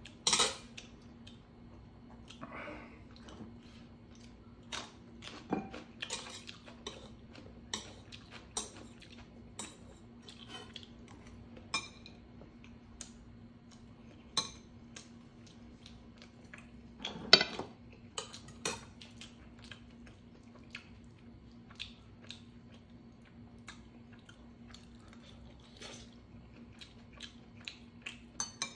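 Metal chopsticks and a spoon clinking and scraping against a stainless steel bowl, with eating sounds between; the loudest clatters come about half a second in and again just past the middle. A faint steady hum runs underneath.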